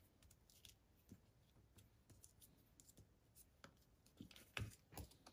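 Near silence with faint, scattered clicks and taps of hands handling small paper pieces on a craft mat; two slightly louder taps come near the end.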